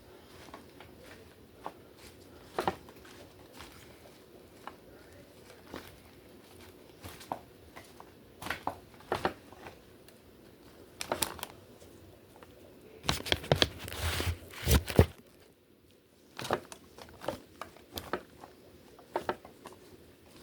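Salad greens being tossed and fluffed by hand, giving intermittent rustling and crinkling with scattered light taps, loudest in a short flurry about two-thirds of the way through.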